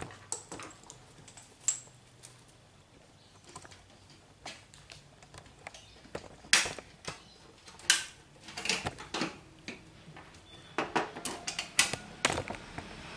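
Irregular clicks and clanks of metal machine parts and tools being handled and set down on a tiled floor.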